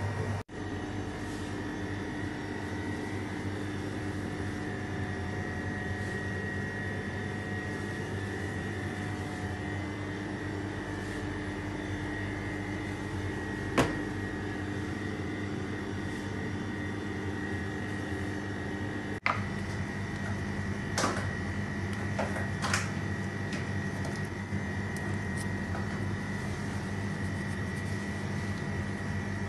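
Steady mechanical hum of a running kitchen appliance or ventilation unit, holding several steady tones. A sharp click comes about midway, as the plastic lid of a spice jar is opened, and a few lighter clicks and taps follow later.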